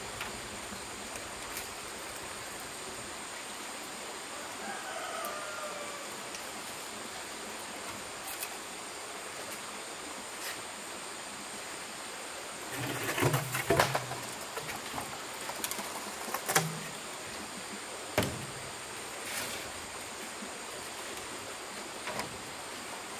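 A rooster crows faintly about five seconds in, over a steady hiss. A little past halfway comes a quick cluster of knocks and thumps, then a few single knocks.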